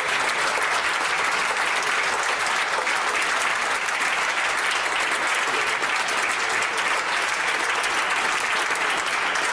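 A large gathering of people clapping together in sustained, even applause, a spontaneous show of support.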